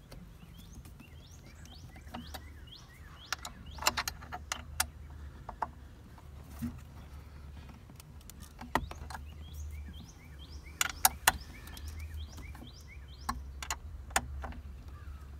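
Allen wrench clicking and scraping against the metal mounting bolts of a grab handle as they are turned in, in a scattered series of sharp clicks. Small birds chirp faintly throughout, over a low steady hum.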